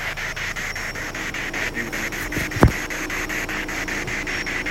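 SB7 spirit box sweeping through radio stations: steady hissing static chopped into rapid, even pulses several times a second. A single sharp thump about two and a half seconds in is the loudest sound.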